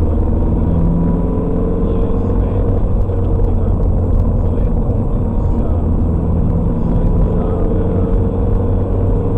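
Steady engine and road noise inside a moving car's cabin while cruising: a low rumble with the engine's hum drifting slightly up and down in pitch.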